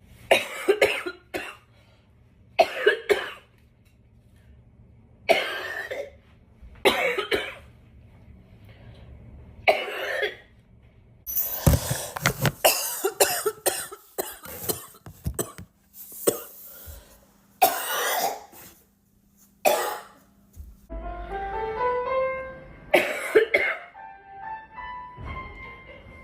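A girl coughing repeatedly: about a dozen coughs, some single and some in quick runs, with a dense fit around the middle. Soft background music plays underneath, with a run of rising notes near the end.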